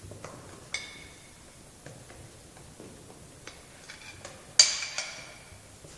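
A china plate clinking as food is tipped off it into a mixing bowl. There is a sharp ringing clink just under a second in, light taps in between, and a louder ringing clink about two-thirds through that dies away over half a second.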